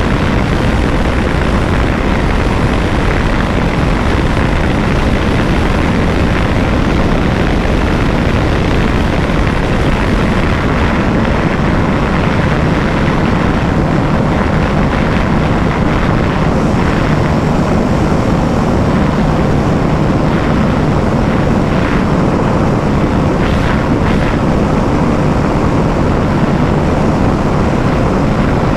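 KTM 390 Adventure's single-cylinder engine held flat out in fifth gear at about 161 km/h, its drone mixed with heavy wind rush at that speed. The sound stays loud and steady, with no change in pitch.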